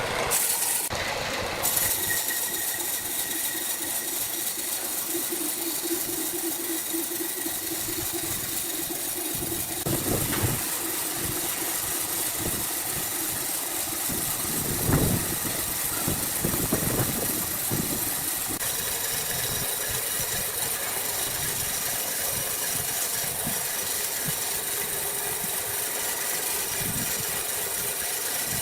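Sawmill machinery running steadily, with a held hum and a few thuds: one about ten seconds in and two more a few seconds later.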